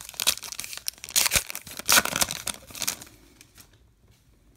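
A trading card pack's foil wrapper being torn open and crinkled in the hands: a run of crackling rustles for about three seconds, fading near the end.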